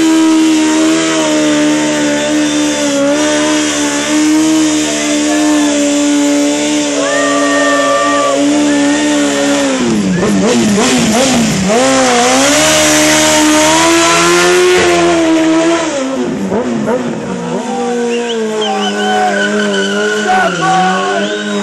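Honda Fireblade's inline-four engine held at high revs through an aftermarket sport exhaust during a burnout, with the rear tyre spinning and hissing on the asphalt. About ten seconds in, and again around sixteen seconds, the revs drop and waver before climbing back.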